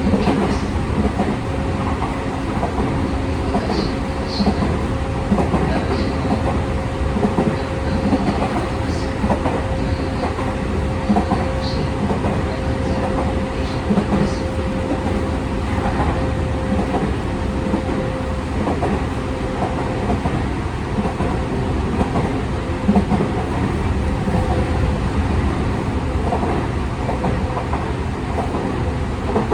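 Tokyu 5000 series electric train running, heard inside its motor car: a steady rumble with wheels clicking over rail joints. A steady tone runs through it and fades out about two-thirds of the way through.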